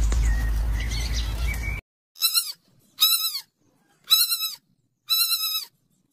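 A steady outdoor hiss that cuts off suddenly about two seconds in, followed by four short high-pitched piglet squeals about a second apart, each rising and then falling in pitch.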